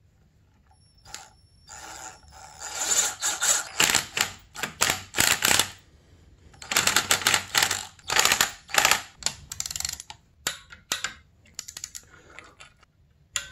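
Hand ratchet clicking in quick back-and-forth strokes, running in the stator's socket-head screws: two runs of fast pawl clicking about three strokes a second, then a few scattered single clicks near the end.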